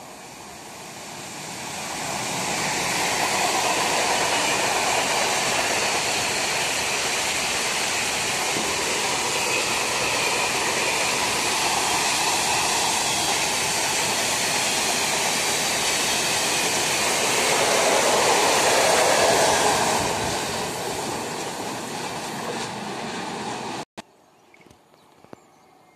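Passenger train hauled by a Siemens Vectron electric locomotive running past: steady wheel-on-rail rolling noise that builds over the first few seconds and swells once more before easing. It cuts off abruptly about 24 seconds in.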